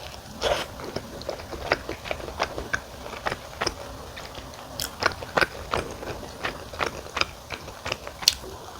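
Close-up mouth sounds of someone biting and chewing wood-fired sweet potato pizza, with many irregular crisp crackles and wet clicks.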